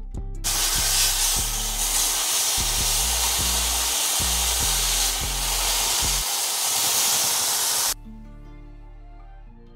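Chicken breast sizzling loudly in a hot frying pan with teriyaki marinade, over background music. The sizzle starts suddenly about half a second in and cuts off abruptly about eight seconds in, leaving only the music.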